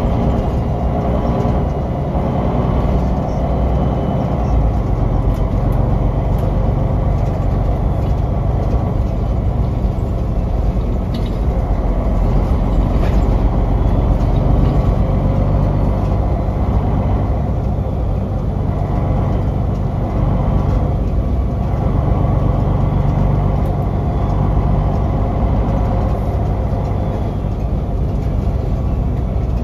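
Cabin sound of a 2005 MAN NL263 Lion's City city bus under way: its MAN D2866LUH27 straight-six diesel and Voith Diwa automatic drivetrain running steadily under a low drone with road rumble. Occasional light rattles and clicks come from the interior.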